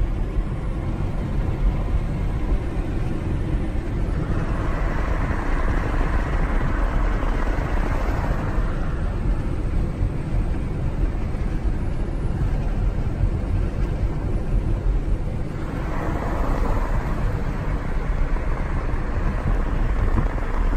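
Car road noise heard from inside the cabin while driving: a steady low rumble of tyres and engine, with a brighter rushing stretch from about four to nine seconds in and again briefly around sixteen seconds.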